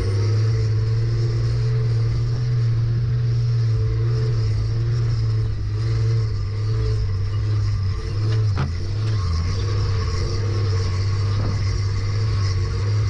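A four-wheel-drive wagon driving on a sand track: its engine runs at a steady low drone with tyre and road noise, picked up from a camera mounted on the vehicle's side. A single sharp click sounds a little over halfway through.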